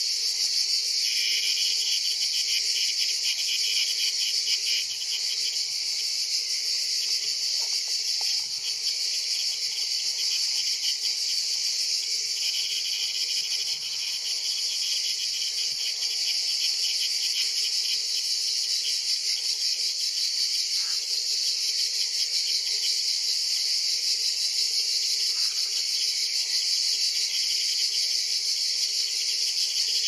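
A chorus of cicadas: a steady high-pitched buzz, with a lower, rhythmically pulsing song that comes in about a second in, fades after a few seconds, returns for a few seconds midway, and starts again at the end.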